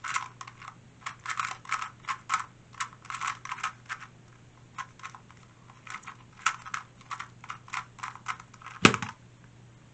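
2x2 speed cube being turned fast in a speedsolve: rapid bursts of plastic clicking as the layers turn, with short pauses between bursts. One louder, sharper knock comes near the end as the solve finishes.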